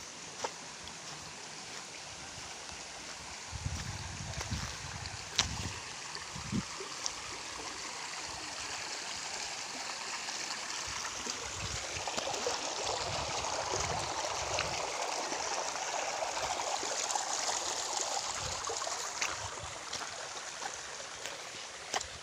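Shallow stream water running over rocks: a steady rush that swells louder through the middle and eases near the end, with a few sharp clicks of footsteps on gravel.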